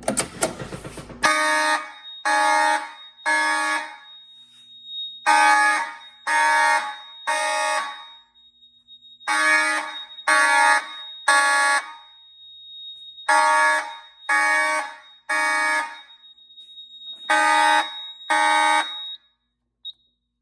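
A brief clatter as a manual pull station is pulled, then two 1980s Federal Signal-built fire alarm horns (rebranded Space Age and FCI) sounding code 3, the temporal-three pattern: three buzzy blasts, a pause, repeated, echoing loudly in an unfinished basement. A thin steady high tone runs under the blasts, and the horns cut off after two blasts of the fifth round.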